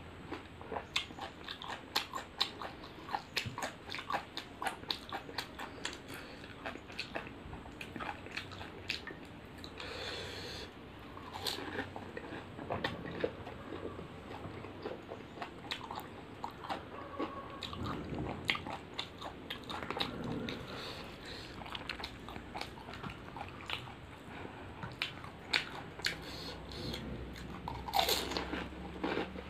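A person chewing and crunching pani puri (golgappa), the crisp fried hollow shells breaking up into many quick crackles in the mouth. Near the end a fresh puri is pushed into the mouth and bitten, giving the loudest crunch.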